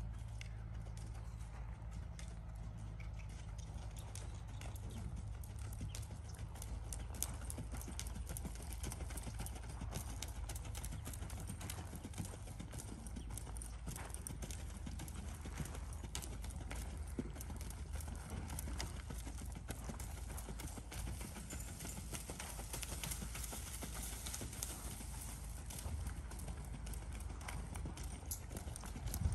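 A ridden horse's hooves beating steadily on arena sand at a brisk gait, a continuous run of quick hoofbeats over a low steady rumble.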